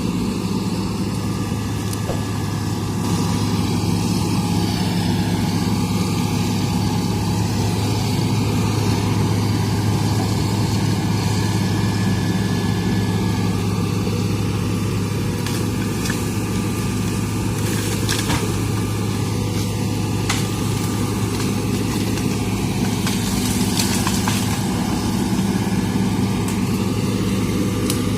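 Hitachi excavator's diesel engine running steadily under work, with a few short sharp knocks or cracks in the second half.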